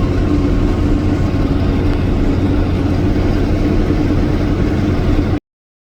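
Vehicle driving along at steady speed: a steady engine drone and road rumble heard from inside the cab. It cuts off suddenly near the end.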